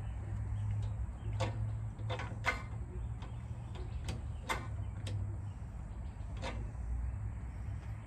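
Hand tools and metal parts clinking now and then during mower starter work: about six short, light clicks spread over several seconds, over a steady low hum.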